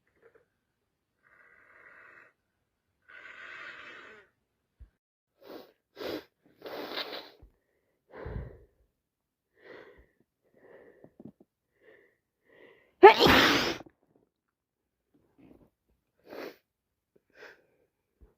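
A person with a heavy head cold sniffing and breathing through a blocked nose, then one loud sneeze about thirteen seconds in, followed by a couple of short sniffs.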